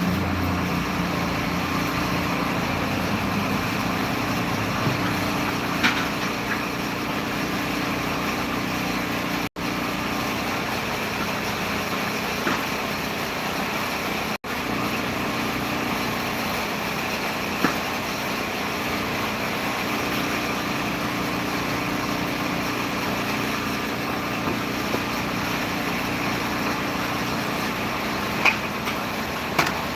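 An engine running steadily at idle, with a few faint knocks; the sound drops out for an instant twice.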